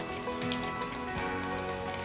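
Background music of held, sustained notes, with rain pattering underneath.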